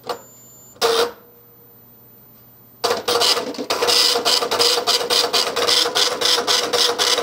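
Dot-matrix printer of a military UGC-74B communications terminal, printing its self-test. A click and a short loud burst of the mechanism come in the first second. From about three seconds in, the print head rattles out rapid strikes over a steady motor tone as the carriage travels: the carriage motor is running again after its failed power FET was replaced.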